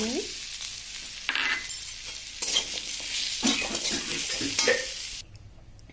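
Metal spatula stirring and scraping in a metal pan while elephant apple pieces sizzle in oil, as jaggery is being stirred in. The sizzling and scraping cut off suddenly about five seconds in.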